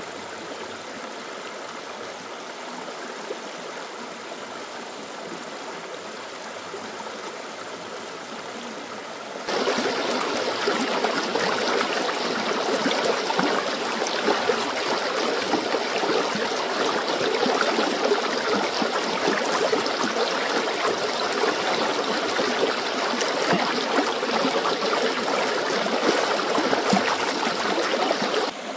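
Stream water running steadily, a dense rushing noise. About a third of the way in it becomes abruptly louder and fuller, and it drops back down just before the end.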